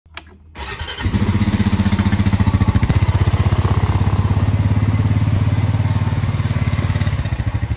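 Red Honda utility ATV started with the ignition key: the engine catches about a second in and settles into a steady idle with an even pulsing beat.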